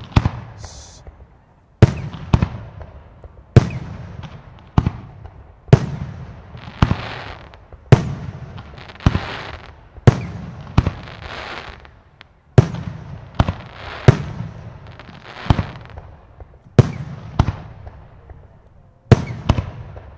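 Aerial fireworks bursting in steady succession, a sharp bang about every second or so, each fading into a rumble. Several bursts trail off in a hissing crackle.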